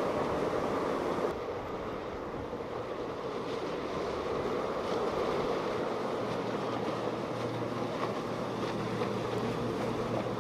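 Outboard-powered boats running fast through choppy water: engine noise mixed with the rush of spray off the hull and wind on the microphone. A low, steady engine hum comes in about six seconds in as a center-console boat passes.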